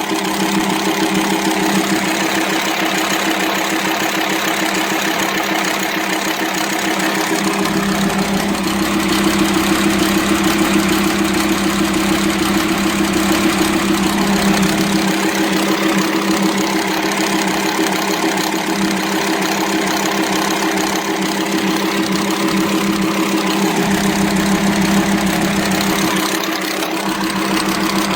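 VW Transporter T5 2.5 TDI five-cylinder diesel idling with a noisy clatter from the cylinder head, a sign of its worn, broken camshaft. A deeper drone swells in and fades twice as the idle runs unevenly.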